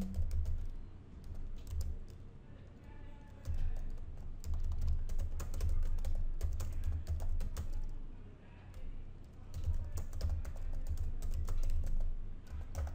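Typing on a computer keyboard: a steady run of key clicks as a command and a line of text are typed, with a couple of short lulls between bursts of keystrokes.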